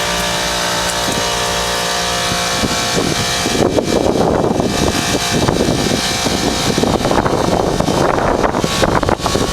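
Bard wall-mount heat pump running in cooling mode: its Copeland scroll compressor and condenser fan make a steady hum of several tones. About three and a half seconds in, a rough, fluttering rush of air joins it.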